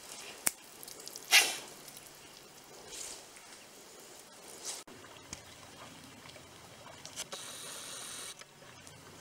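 A wet hunting dog moving on grass with a retrieved duck: short rustling, squelching sounds, the loudest a sharp hissing burst about a second and a half in.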